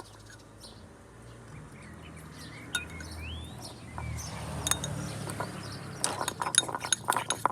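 A utensil clinking and tapping against a container as slime is stirred and mixed, with a quick run of clicks over the last second or two. Before that there is a low rumble and one brief rising squeak.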